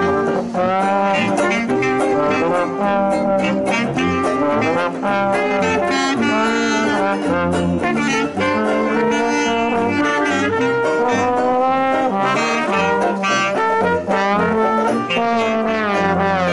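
A small brass-and-reed street band of trumpet, trombone and clarinet playing a jazz tune together.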